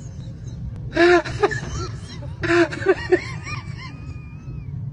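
Snickering and stifled laughter from passengers, with a high, thin wavering voice sound in the second half, over the steady low rumble of a moving train carriage.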